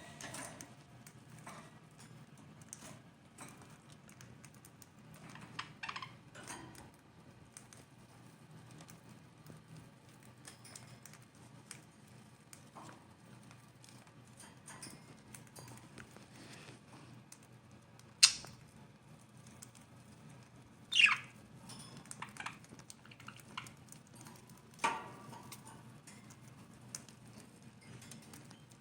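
Budgie husking millet seeds from a millet spray: small irregular pops and crackles as the seed hulls crack, with a few sharper, louder clicks in the second half.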